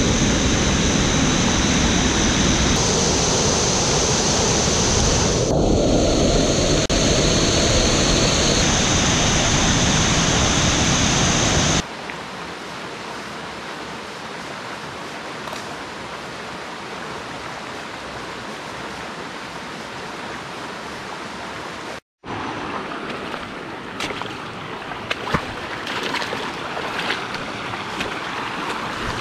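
A rain-swollen forest stream in flash flood, rushing loudly over a fallen log, with a steady high hiss over it. About twelve seconds in, this gives way abruptly to a much quieter steady flow of a clear stream. After a brief cut-out, shallow water runs over rocks with a few light knocks and clicks.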